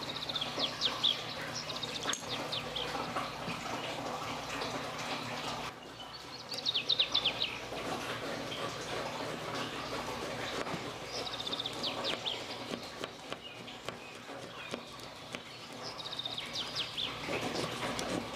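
Birdsong: a bird repeats a short, quick run of high, falling chirps about every five seconds over a steady background hiss.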